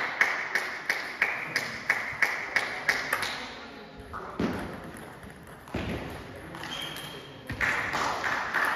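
Table tennis balls clicking off bats and tables in a quick rhythm of about three a second for the first few seconds. Then come a few scattered thuds and a brief high squeak, and the clicking starts again near the end.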